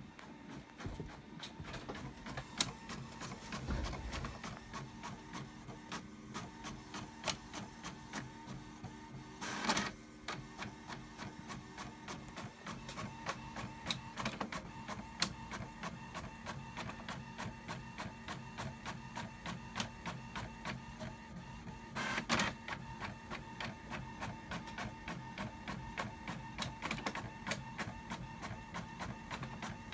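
A printer running, with a steady hum under a fast, even rhythm of mechanical strokes. Two louder surges come about ten seconds in and again about twenty-two seconds in.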